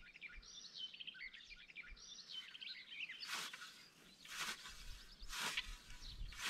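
Birds twittering, then a scythe swishing through long grass in repeated strokes about once a second, starting about halfway through.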